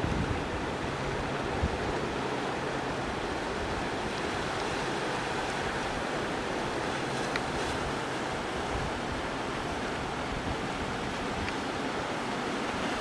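Steady wash of sea surf and wind, an even noise with no distinct events.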